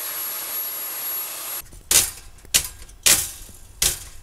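Vacuum cleaner running steadily with a thin high whine, cutting off about one and a half seconds in. Then four sharp knocks as the toaster's chassis and parts are handled, louder than the vacuum.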